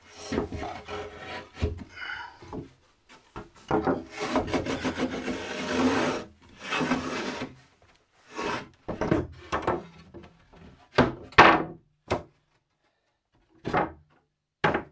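Timber shelf board being pushed into a wooden shelf frame: wood rubbing and scraping against wood in uneven strokes, then a few sharp knocks near the end as the board seats in place.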